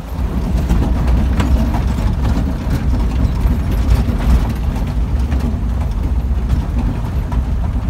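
Land Rover driving over a gravel track, heard from inside the cab: a steady low engine and road rumble with scattered brief knocks and rattles.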